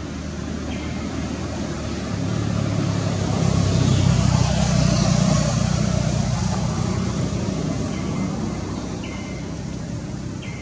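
A motor vehicle passing by, its engine hum swelling to a peak about halfway through and then fading away.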